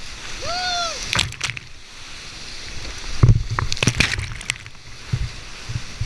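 Whitewater rushing at high flow around a kayak running a steep rapid. Water splashes and thumps against the boat and camera, loudest about three seconds in. About half a second in, a brief shout rises and falls in pitch.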